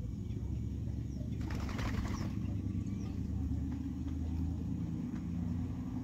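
Birds flushing from the ground: a quick burst of wing flapping about a second and a half in, lasting under a second, over a steady low rumble.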